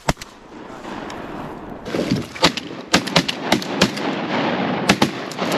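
A rapid volley of shotgun shots from several duck hunters: one shot just after the start, then about ten sharp shots in quick succession over the last three and a half seconds.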